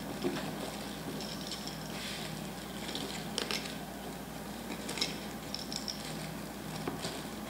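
Plastic wrapping crinkling and packaging being handled as items are unwrapped, in short scattered rustles with a few small clicks, over a steady low hum.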